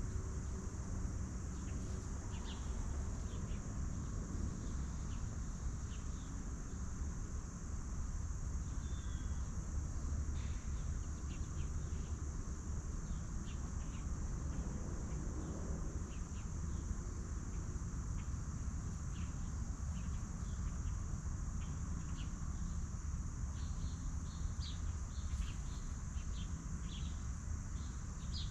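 A steady high-pitched drone of insects, with short bird chirps scattered through and coming more often near the end, over a low steady rumble.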